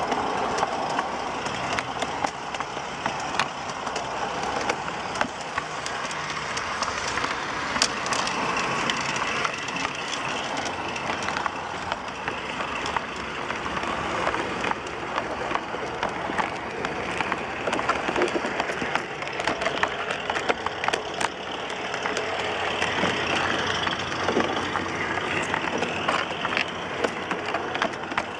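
G-scale garden-railway model rolling along the track: a steady rattling rumble of small wheels on the rails, with frequent sharp clicks as they pass over the rail joints.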